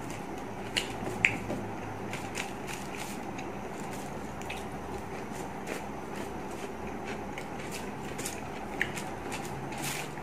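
Eating by hand: chewing, with scattered small mouth and finger clicks on the paper wrapping. Two sharper clicks come about a second in and another near the end, over steady room noise.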